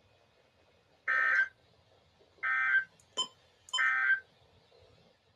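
Emergency Alert System end-of-message (EOM) data bursts: three short, identical, raspy digital screeches about 1.3 seconds apart, marking the end of the alert. A brief click falls between the second and third burst.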